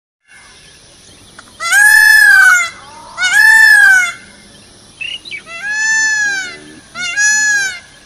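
Indian peafowl (peacock) calling: four loud calls of about a second each, every one rising then falling in pitch, given in two pairs.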